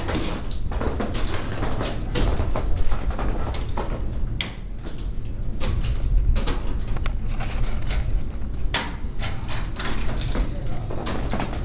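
Ice axe picks and crampon front points striking waterfall ice in irregular sharp hits, over a steady low rumble.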